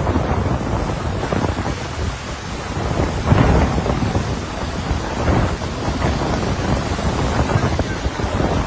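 Car driving through floodwater covering the road: a continuous rushing and splashing of water thrown up by the tyres, mixed with wind rumble on the microphone at the open window, swelling briefly about three seconds in.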